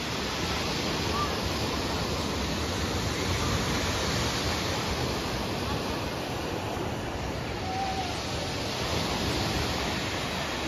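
Sea surf breaking and washing onto a sandy beach, heard from above as a steady rushing noise that swells gently.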